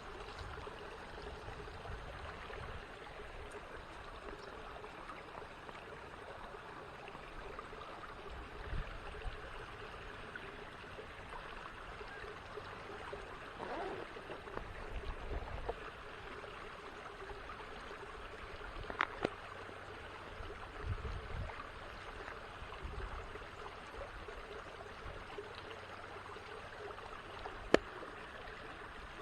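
Small creek running and trickling steadily, with a few brief low rumbles and a sharp click near the end.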